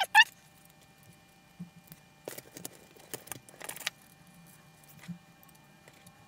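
Small metal clicks and scrapes of an M3 screw and nut being tightened with a small wrench, coming in several short clusters, with a faint steady whine underneath. A brief loud pitched chirp sounds right at the start.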